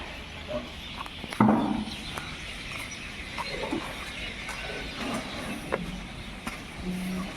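Pigs in a shed making scattered short grunts and squeals. A sharp knock about one and a half seconds in.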